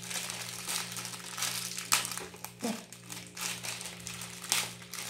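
Crinkling of a small clear plastic bag being handled and pulled open by hand, with a couple of sharper crackles, about two seconds in and near the end.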